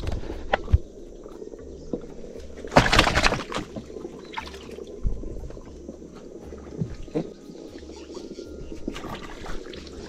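Scattered knocks and water noise around a small boat on the river, with one louder splash-like rush about three seconds in.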